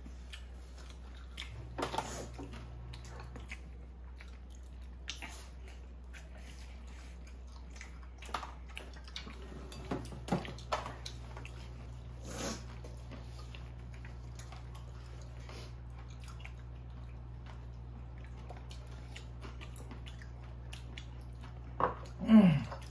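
Close-up eating sounds of people chewing and biting soft, saucy tteokbokki and fried food, with wet smacks, a noodle being slurped and light clicks, over a steady low hum. Near the end a brief voice sound with a falling pitch is the loudest moment.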